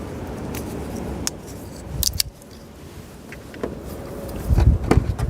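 Hand work on a plastic push rivet with a Phillips screwdriver: scattered light clicks and taps, a sharper pair about two seconds in, and a run of dull knocks and thumps near the end as the rivet is pushed into place.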